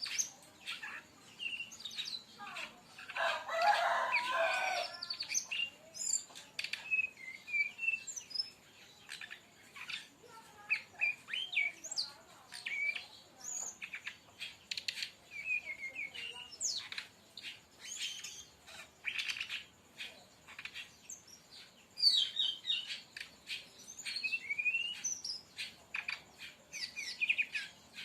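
Sikatan rimba dada coklat (brown-chested jungle flycatcher) singing: quick runs of varied short whistles, chirps and trills broken by brief pauses. A dense, loud burst of song comes about three seconds in.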